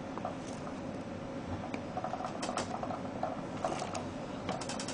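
Faint plastic clicks and rubbing as a DDR2 RAM stick is pressed down into its motherboard slot, with a quick run of small clicks near the end.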